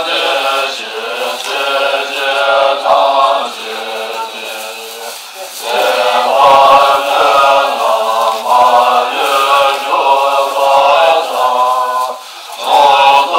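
Group of voices chanting a Tibetan Buddhist prayer together in a steady rhythmic melody, softer for a moment around the middle.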